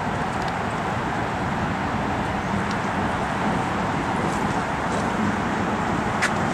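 Steady noise of distant road traffic, an even wash with no single vehicle standing out.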